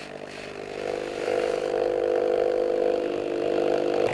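Thermal tattoo stencil transfer machine running, its motor-driven rollers drawing the stencil paper through with a steady hum that grows louder about a second in.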